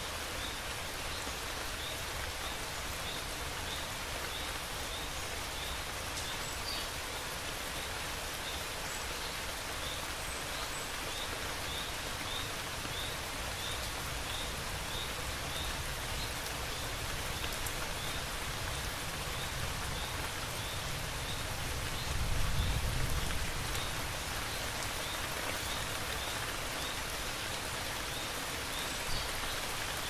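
Steady rain falling, with a faint high chirp repeating about twice a second, and a short low rumble of thunder about three-quarters of the way through.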